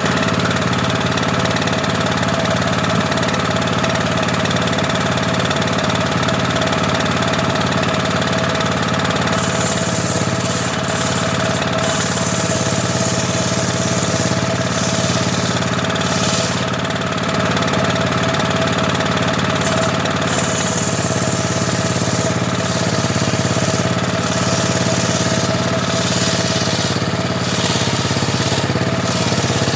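Homemade table saw running steadily with a constant machine hum. From about ten seconds in, a high hiss comes and goes on top of it as the blade cuts teak.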